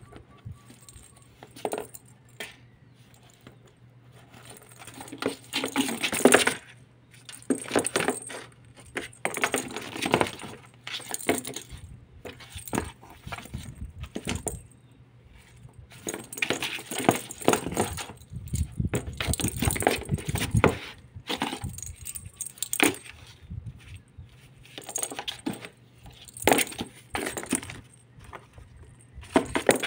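Kitten playing with a small ball in a cardboard box: irregular spurts of rattling and scrabbling on the cardboard, each a second or two long, with short pauses between them.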